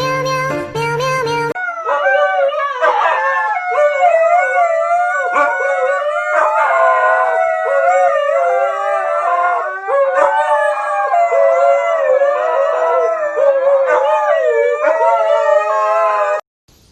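Canine howling, long wavering howls from more than one animal overlapping, with rising and falling pitch; it stops abruptly near the end. A snatch of music comes before it for about the first second and a half.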